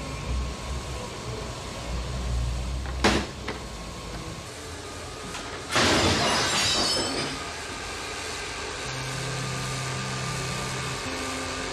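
Film sound effects: two sharp knocks about three seconds in, then a sudden loud crash that dies away over about a second and a half.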